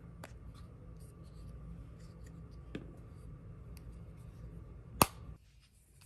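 Handling of a plastic powder compact and its cardboard box: a few light clicks and taps, then one sharp click about five seconds in.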